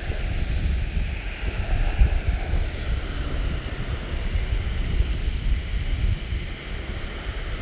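Strong gusty wind buffeting the microphone with a heavy, uneven low rumble, over a steady rush of creek water spilling across a rocky, log-strewn riffle.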